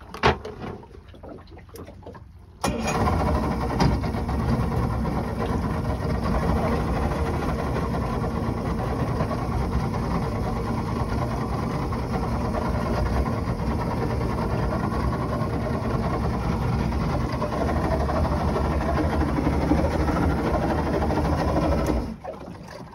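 Yamaha outboard motor running steadily: it comes in suddenly about three seconds in and cuts off about a second before the end. A sharp thump sounds just at the start.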